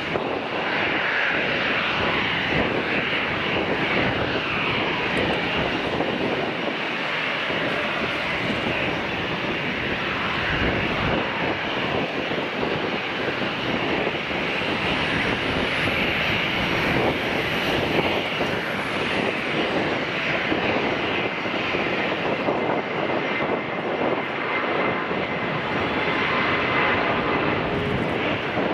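Jet engines of an Airbus A330-300 running at high power, a steady loud noise with no break, as the airliner moves onto the runway and rolls for takeoff.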